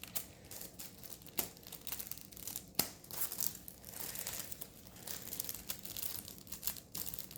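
Packaging crinkling and tearing as it is struggled open by hand, with irregular rustling and a few sharp crackles.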